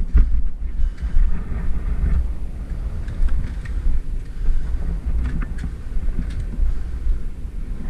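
Wind rumbling on the microphone, with a few faint scattered clicks.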